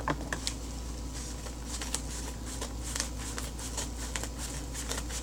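Yellow padded paper mailer being handled and pulled open by hand: irregular crinkling and rustling with many small sharp crackles.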